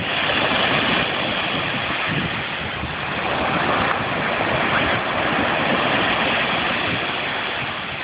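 Ocean surf breaking and washing up a sandy beach: a steady rush of noise that swells and eases slightly.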